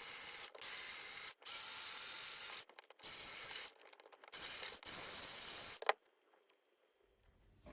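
Power drill boring into the plastic housing of a 150 A resettable fuse in about six short bursts, each with a high whine, stopping about six seconds in.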